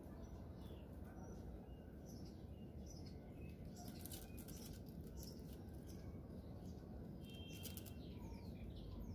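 Small birds chirping in short, scattered calls, faint over a steady low background hiss, with a few sharp high clicks around the middle and near the end.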